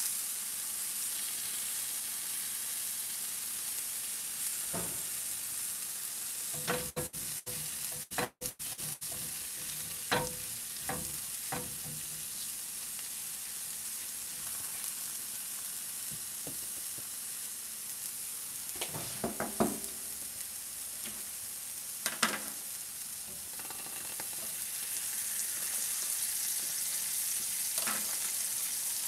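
Sliced mushrooms sizzling in butter in frying pans, a steady hiss. A silicone spatula stirs them now and then, with short scrapes and knocks against the pan, loudest about 10, 19 and 22 seconds in.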